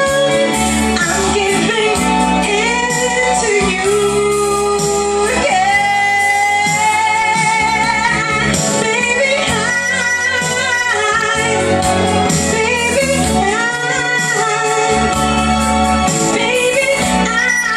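A woman singing through a handheld microphone over a backing track with bass, sliding between long held notes with vibrato.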